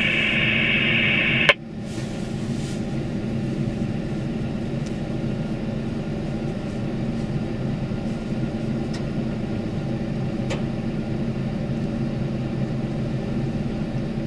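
Truck engine idling steadily, heard inside the cab. For about the first second and a half the two-way radio's speaker hisses with the repeater's tail after an unanswered radio-check call, then it cuts off suddenly with a click as the squelch closes.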